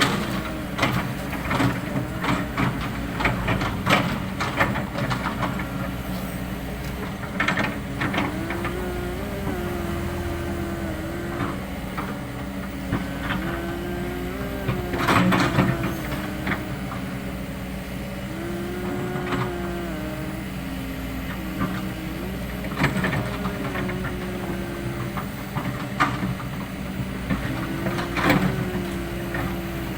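Kobelco SK200 hydraulic excavator at work. Its diesel engine runs steadily under a whine that rises and falls several times, with scattered knocks and clanks throughout.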